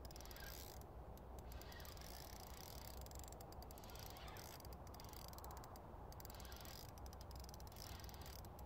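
Fixed-spool fishing reel ticking faintly in short runs of rapid clicks, about six runs, as a hooked carp is played on the rod, over a low steady rumble.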